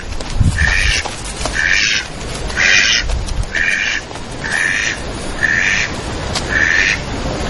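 A duck quacking over and over, about one short quack a second, over a steady low rumble.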